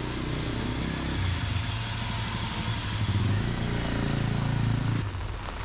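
A motor vehicle's engine runs as a steady low hum under a broad hiss, then cuts off abruptly about five seconds in.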